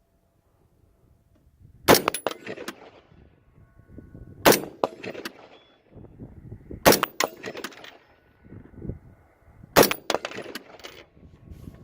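Four rifle shots, spaced about two and a half seconds apart, each followed by a short trail of weaker cracks and echoes.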